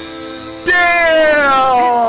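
Music: a quiet held tone, then about two-thirds of a second in a loud sliding note that falls steadily in pitch.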